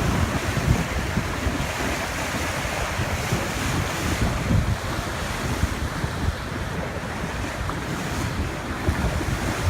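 Wind buffeting the microphone in gusts over the steady rush of the open sea's waves.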